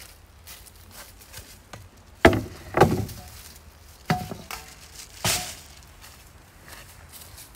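Footsteps on dry leaves, then a thick round wooden cutting board set down on a wooden table with a loud knock about two seconds in. Plastic bags rustle and a metal item clinks as they are unpacked on the table.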